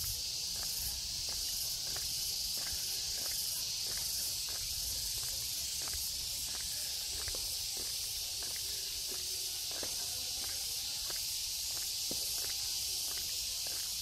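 A steady, high-pitched insect drone, such as cicadas or crickets, with footsteps ticking along at an even walking pace.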